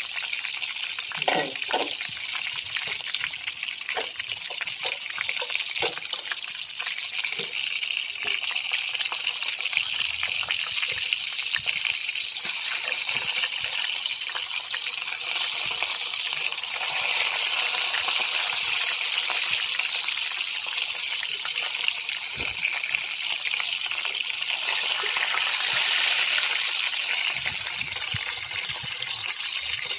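Breaded chicken pieces sizzling in hot oil in a frying pan, with the sizzle growing louder about halfway through. Short clicks and scrapes come from metal tongs turning the pieces.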